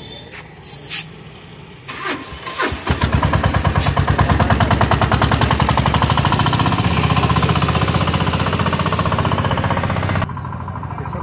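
Motorcycle tyre being inflated at an air station: the air compressor runs with a fast pulsing beat while air goes through the hose chuck into the tyre. It is preceded by a few clicks as the chuck is fitted to the valve, starts about three seconds in, and cuts off suddenly near the end.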